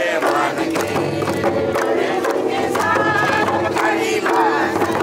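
A group of men and women singing a folk song together, with hand clapping.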